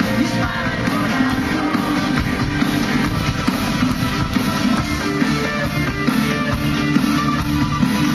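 Live pop-rock band playing through the stage PA, with electric guitar to the fore over bass and drums; steady and continuous.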